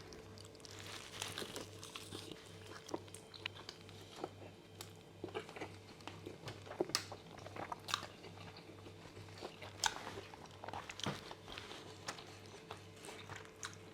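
A person biting into and chewing a Double Whopper burger close to the microphone, with many small, irregular crunches and wet mouth clicks.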